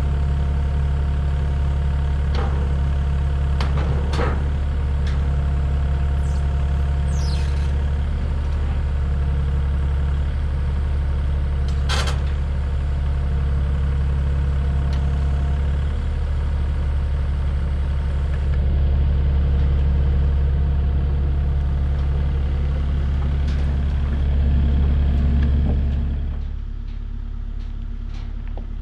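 Kubota KX040-4 mini excavator's diesel engine running steadily close by, with the loaded forks held up, and a few sharp clicks early on and about twelve seconds in. The engine gets louder for a few seconds twice in the second half, then drops to a lower, more distant level near the end.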